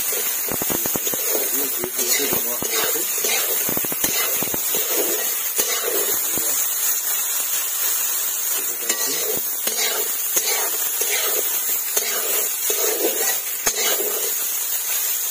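Diced potatoes and soya chunks frying in oil in a metal kadai, with a steady sizzle and frequent clicks and scrapes of a metal spatula stirring against the pan.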